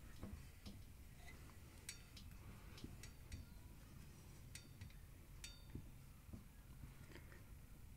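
Faint metallic clicks and clinks, about half a dozen at irregular intervals, from a spanner turning the nut on the threaded bar of a bearing press. The press is drawing a new front wheel bearing into a motorcycle wheel hub.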